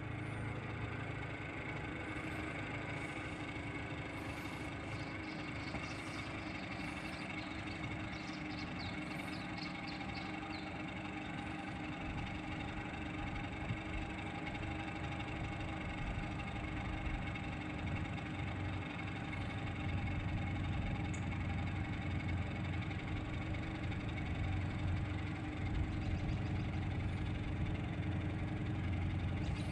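Steady engine hum with many held tones, like a motor idling, growing a little louder after about twenty seconds. Faint high chirps in the first ten seconds.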